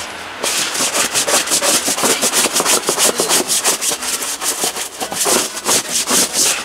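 Stiff-bristled deck brush scrubbing a wet plastic pond liner in fast, even back-and-forth strokes, working sludge off it, over the steady hiss of a hose spray nozzle rinsing the liner.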